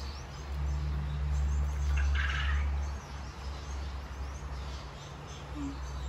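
Faint chirping of birds over a low steady hum, with a brief raspy sound about two seconds in.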